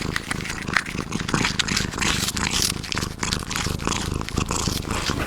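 Cat purring steadily while eating, with a quick run of wet chewing and smacking clicks over the low purr.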